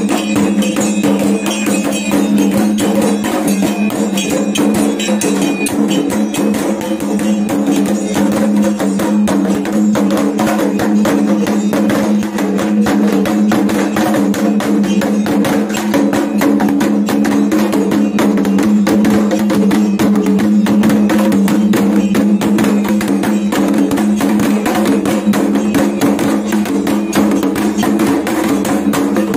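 Three hanging Dayak kendang drums beaten fast and continuously with sticks by several players, a dense, driving rhythm over steady low ringing tones. It starts abruptly.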